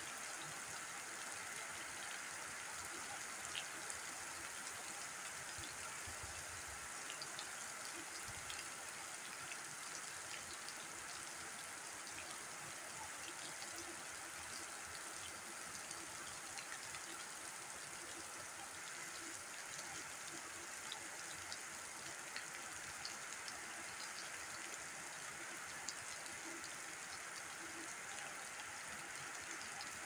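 Rain falling on bare ground: a steady hiss with scattered ticks of single drops.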